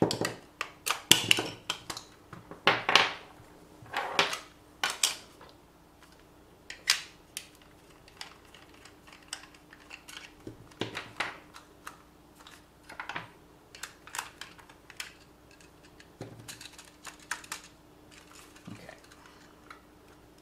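Clicks, knocks and clatter of small hard plastic and metal parts being handled: an RC car's plastic chassis, parts and tools worked on by hand. The clatter is loudest and busiest in the first few seconds, then thins out to scattered clicks over a faint steady hum.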